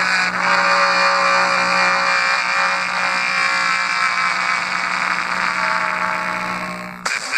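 A loud, sustained buzzy electronic tone from a small homemade car-audio speaker setup, over a steady low hum. It fades a little, then cuts off abruptly about seven seconds in.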